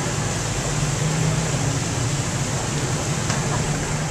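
Steady street traffic noise with a low engine hum, mixed with the hiss of a running fountain; a pickup truck drives past.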